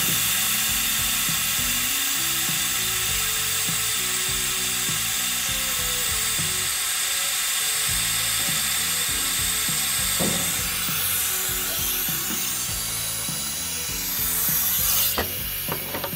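Steady hiss of compressed air from the truck's air system driving the air-operated ramp of a Versatran Retriever transport body, with a few mechanical clicks. The hiss swells and then cuts off near the end.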